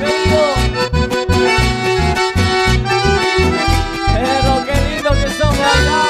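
Live band music led by accordion, playing a melody over a steady bass beat, with no singing.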